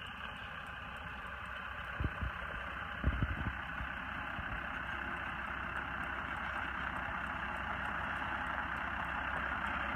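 Farm tractor engine running steadily as the tractor drives toward the listener, growing gradually louder, with a few low thumps about two and three seconds in.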